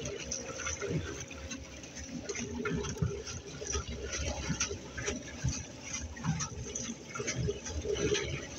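Water splashing and lapping against a kayak's hull as it is paddled, in irregular sloshes, with a faint steady whine underneath.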